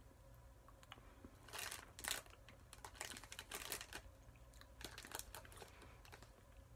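Faint, scattered clicks and crinkles from a piece of milk chocolate being handled and eaten, in a few short clusters.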